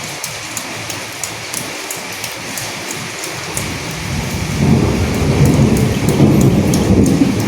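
Steady rain with many separate drops ticking. About halfway through, a low rumble of thunder swells and goes on through the rest.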